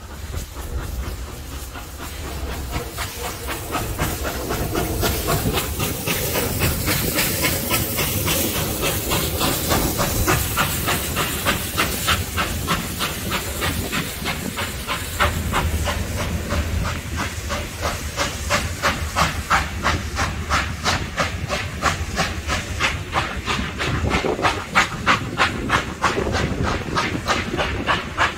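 Steam locomotive working under steam, its exhaust beating in a rapid, even chuff with a steady hiss of steam. The beats grow louder over the first few seconds, then keep a steady pace.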